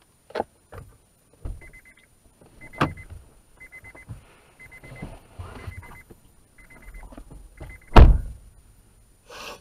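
Irregular knocks and rattles inside a moving car's cabin as it drives over a cracked road, with one loud thump about eight seconds in.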